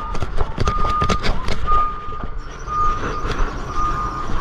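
A vehicle's reversing alarm beeping about once a second over a low engine rumble, with a run of clattering knocks in the first couple of seconds.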